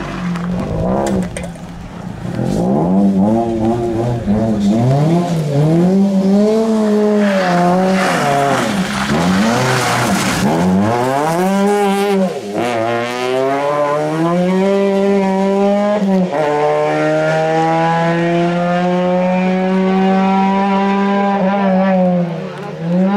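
Peugeot 206 RC rally car's four-cylinder engine revving hard, its pitch rising and falling with throttle lifts through the corners, then climbing in long runs with two upshifts in the second half as it accelerates away. A burst of tyre noise near the middle.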